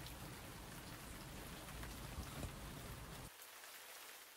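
Faint, steady rain falling, an even hiss; a low rumble underneath cuts off about three seconds in.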